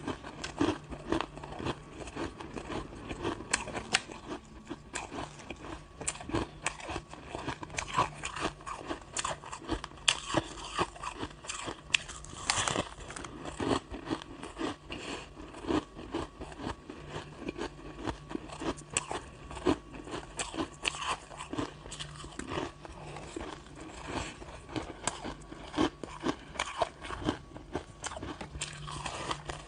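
Crushed ice being bitten and chewed, with many sharp, irregular crunches close to the mouth.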